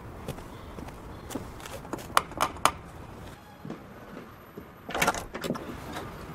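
Three quick knocks on a wooden front door, then a couple of seconds later a cluster of clicks and a rattle as the latch is worked and the door is opened.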